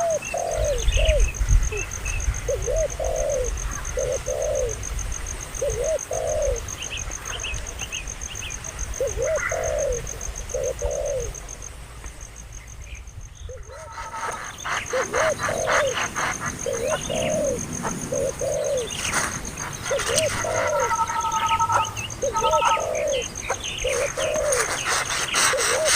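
A dove cooing over and over in short arched notes, with other birds chirping higher up and a steady thin high-pitched tone behind. The sound dips briefly about halfway through, then the cooing carries on.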